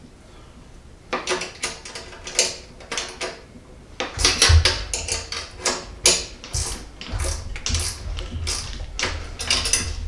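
8 mm wrenches tightening a bolt and nut on a small metal bracket on a lawn mower handle: a run of quick metallic clicks starting about a second in, joined by low knocks from about four seconds in.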